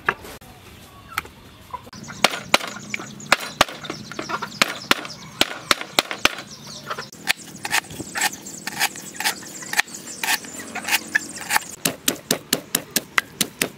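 Wooden pestle striking, sharp wooden knocks about two or three a second from about two seconds in. Near the end they become a fast even run of pounding in a wooden mortar, crushing red chilies.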